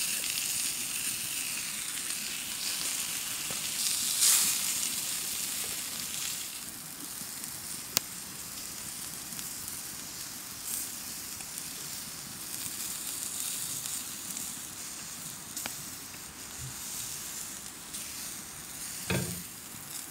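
Lamb cutlets sizzling on a grill over a campfire, a steady hiss with a few sharp clicks, the clearest about eight seconds in.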